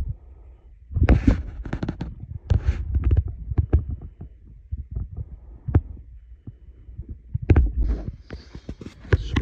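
Close handling noise on the microphone: irregular low thumps and short bursts of rustling.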